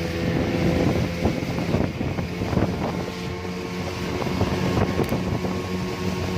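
A boat's outboard motor running steadily under way, with wind buffeting the microphone.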